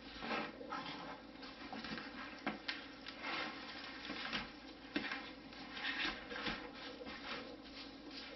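Gloved hands rubbing dry spice rub into a raw brisket on a metal sheet pan and lifting and turning the meat: irregular rustling and patting with a few soft knocks.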